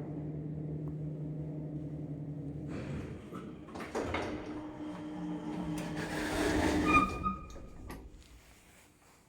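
Old Strommashina passenger lift running: a steady hum for the first few seconds, then clattering, a steady whine with a brief high ringing, and a loud clunk about seven seconds in, after which the noise dies away.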